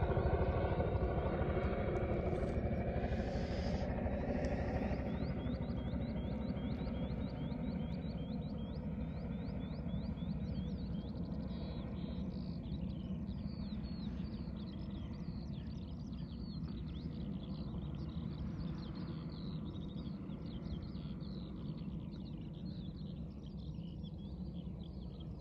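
A passing engine fades away over the first few seconds. Then small birds chirp in a rapid run of short, high, falling chirps over a steady low background rumble.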